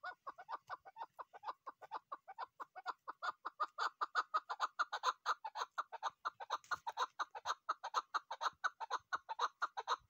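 Female chukar partridge calling: a fast, even run of short chuck notes, about six a second, growing louder over the first few seconds and then holding steady.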